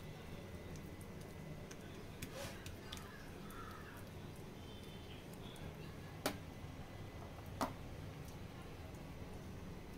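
Faint sounds of hands pressing and stretching soft dough on a countertop over a low steady hum, with two sharp clicks past the middle, the second a little over a second after the first.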